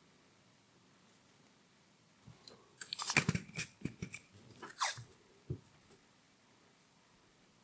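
Sticky tape being handled and peeled: a few seconds of crackling and crinkling with soft knocks, one noise sliding down in pitch, in an otherwise quiet room.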